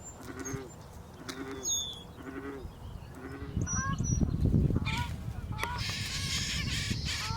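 Birds calling: a low honking call repeats about once a second with a few high thin chirps, then after a loud rustle about halfway through, a dense high chattering begins, which fits common grackle nestlings begging at the nest.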